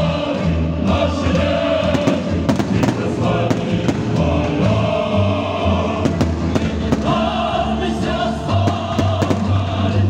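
Choral music playing, with repeated bangs of aerial firework shells bursting throughout.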